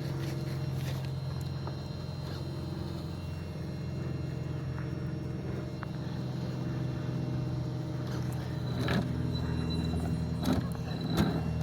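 A 3D-printed RC truck switched on and sitting idle: a steady simulated engine idle from its onboard speaker sound module, over a loud motor cooling fan. A few sharp clicks and knocks come near the end.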